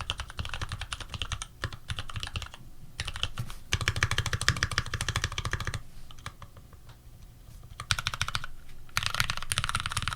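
Typing on an Archon FX mechanical keyboard with lubed Retooled Black linear switches, PBT keycaps and an aluminium plate. Fast runs of keystrokes come in bursts, with short pauses between them and a longer lull a little past the middle.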